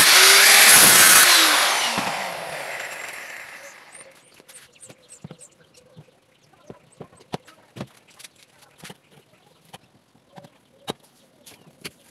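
Angle grinder cutting into the sheet-metal skin of an old refrigerator door. About a second in it is lifted off and switched off, and its whine winds down over the next few seconds. After that there are only scattered light clicks and taps and a few faint bird chirps.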